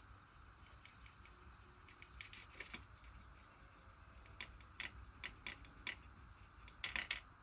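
Faint, irregular small clicks and taps of painting tools being handled, with a quick run of several clicks near the end.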